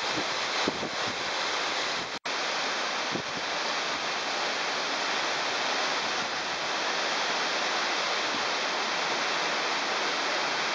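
Waterfall pouring into a narrow rock gorge, close by: a steady rushing hiss of falling water, broken off for an instant about two seconds in.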